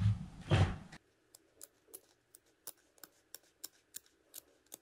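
Scissors snipping through the folded-under seam allowance of double-faced knit fleece (futer): a steady series of short, crisp snips, about three a second, starting about a second in.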